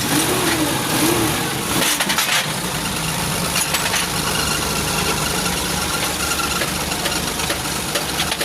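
Car engine running steadily at idle.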